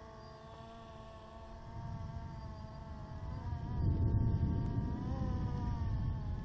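DJI Phantom quadcopter's motors and propellers in flight, heard from the camera on board: a steady buzzing whine of several tones that wavers slightly in pitch as the motors correct. Wind rumbles on the microphone, building about two seconds in and strongest near the middle, as gusts make the drone wobbly.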